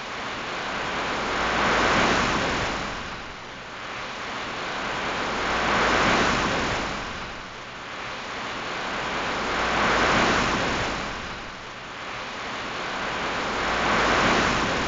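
Sea waves washing in, a steady wash of surf that swells and fades in an even rhythm, one wave about every four seconds.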